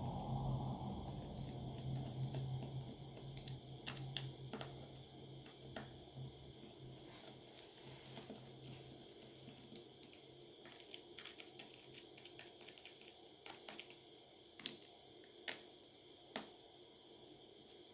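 Faint, scattered small clicks and ticks of hand tools on a smartphone being taken apart: a screwdriver and tweezers working on small screws and plastic parts, with a low hum fading out over the first few seconds.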